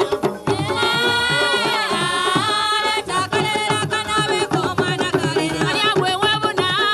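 Traditional Busoga music: drums beating a fast, steady rhythm under group singing.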